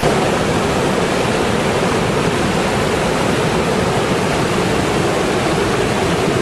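Steady rush of fast-flowing floodwater in a swollen creek, an even, unbroken noise.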